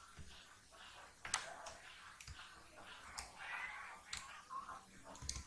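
Faint clicks of a computer mouse and keyboard: a handful of sharp, irregularly spaced clicks.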